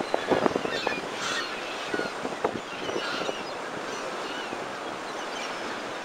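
Rough sea surging and splashing against a sea wall, with the sharpest splashes in the first couple of seconds and a steadier wash of surf after, and wind on the microphone. Black-headed gulls call over it in many short, high cries.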